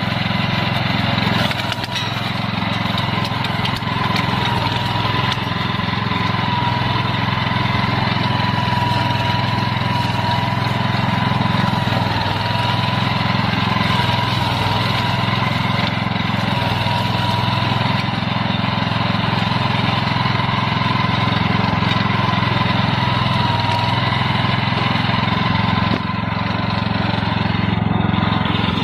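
Walk-behind flail mower running steadily while its flail shaft chops grass. The engine's hum carries a steady high whine on top.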